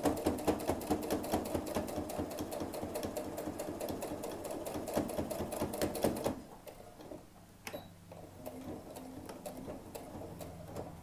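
Domestic sewing machine stitching at a steady pace, a fast, even clicking of the needle as it top-stitches a rolled hem in lightweight poly poplin fabric. It stops about six seconds in, leaving a few faint clicks.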